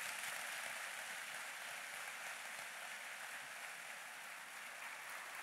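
Large audience applauding: an even, steady clatter of clapping that slowly dies down.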